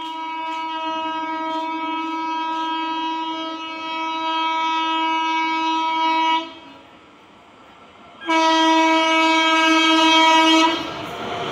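Railway locomotive horn on an approaching train: one long steady blast of about six and a half seconds, a gap of under two seconds, then a second blast of about two and a half seconds.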